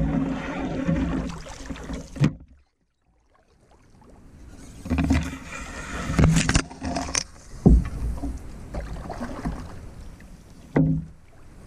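Background music fades out about two seconds in, followed by a brief gap of silence. Then a Northstar Northwind 16 canoe is paddled: scattered hollow knocks, with water sloshing and swishing between them.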